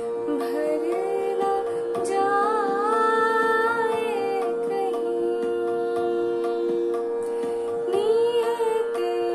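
A woman singing an Urdu ghazal over a steady drone, her held notes wavering and ornamented, with a longer ornamented passage a couple of seconds in and a quick flourish near the end.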